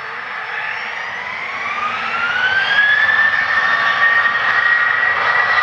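Boeing 737-800's CFM56-7B turbofan engines spooling up to takeoff power. A whine rises in pitch for about two seconds, then holds steady as the engine noise grows louder.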